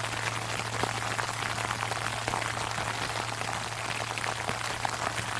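Sleet falling on an umbrella: a dense, even patter of fine ticks. Under it, the low hum of a large Buddhist temple bell is still ringing on from its last strike.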